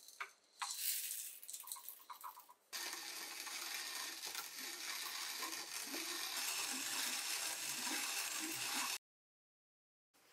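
ROK Coffee Grinder GC, a hand-turned espresso grinder: a few clicks and rattles as its top is handled, then from about three seconds in a steady grinding of coffee beans as the arms are turned, cutting off suddenly near the end.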